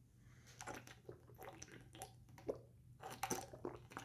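A person gulping water from a plastic water bottle: a run of soft, irregular swallows, thickest about three seconds in.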